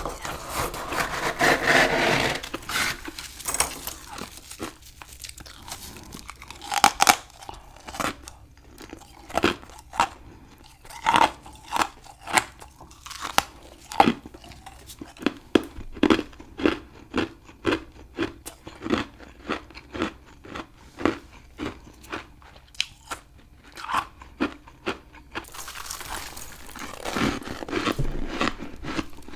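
Close-up biting and chewing of a chunk of humidifier frost. Crisp crunches come about every half second, with denser bursts of crunching near the start and again near the end.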